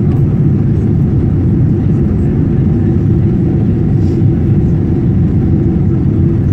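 Steady, low cabin noise of a jet airliner in flight: engine and airflow noise heard from inside the passenger cabin.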